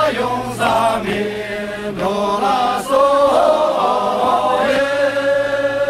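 A group of men singing a Sherpa dance song together in a chant-like unison. Partway through, the melody settles onto one long held note.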